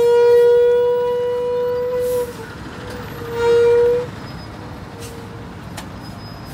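Bus horn blowing: one long steady blast at a single pitch that ends about two seconds in, then a second blast of about a second a little later. Traffic noise from the crawling jam lies underneath.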